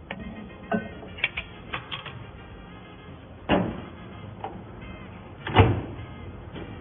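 A few sharp clicks and knocks from a microwave oven's door and a cup being handled after the heating run, the loudest knock about five and a half seconds in.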